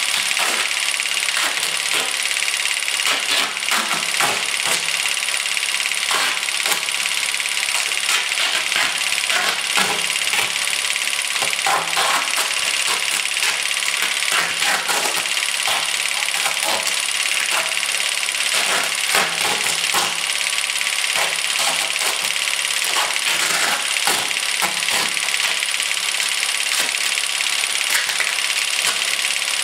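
Plastic sheeting crinkling and adhesive tape being pulled off its roll and pressed on, a dense run of small crackles over a steady hiss.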